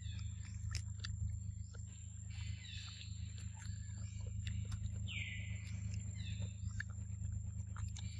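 Macaques biting and chewing ripe mangoes: irregular soft clicks and smacks of eating, over a steady low hum and a thin, steady high tone.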